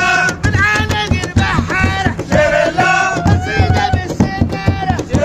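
Music: a sung melody over a steady low drum beat.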